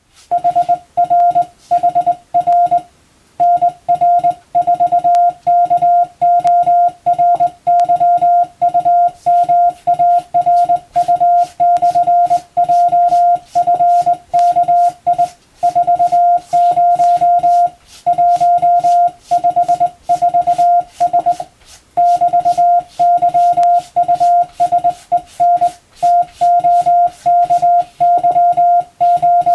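Morse code (CW): a single steady beep tone keyed on and off in dots and dashes, sending practice telegram text in the Latin alphabet, with short pauses between groups of characters.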